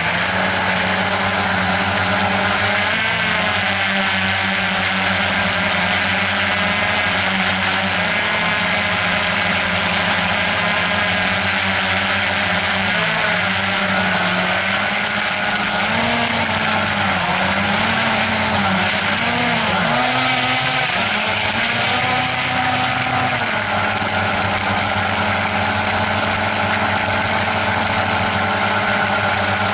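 Quadcopter drone's motors and propellers buzzing steadily, the pitch swooping up and down several times in the middle before settling again.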